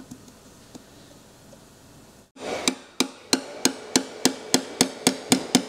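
A small red-handled hammer tapping lightly on the engine's front cover, driving a part home: after a quiet couple of seconds with a few faint clicks, a steady run of sharp taps about three to four a second, speeding up slightly.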